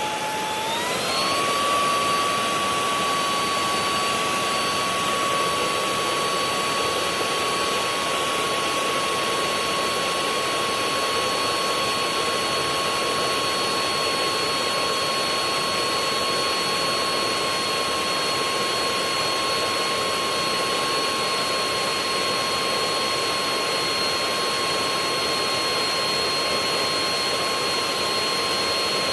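VacLife VL732 cordless stick vacuum's brushless motor running on high: a steady rush of air with a high whine that steps up in pitch about a second in, then holds steady.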